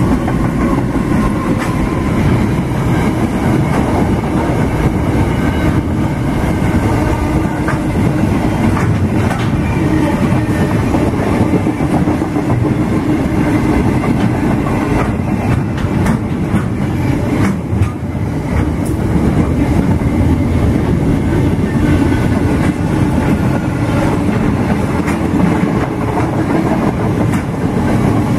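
Freight train passing close by at speed: a steady, loud rumble of steel wheels on the rails, with clickety-clack over the rail joints.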